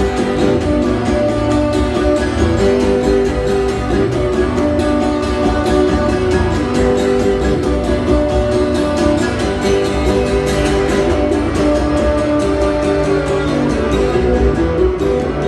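Live music: an instrumental passage of steadily strummed guitar with held notes and no singing.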